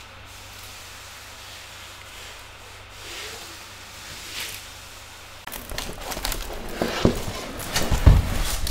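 Quiet room hiss for about five seconds. Then rustling, crinkling and clicks of a large diamond painting canvas with its plastic protective film being handled and laid down on a wooden table, with low knocks, the loudest near the end.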